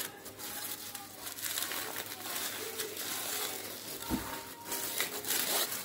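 Aluminium foil being unwrapped by hand, crinkling and rustling in a continuous crackle.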